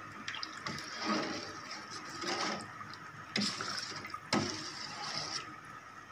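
Steel ladle stirring soup in a stainless-steel pot: liquid sloshing and swirling, with a few sharp metal-on-metal clinks as the ladle knocks the pot.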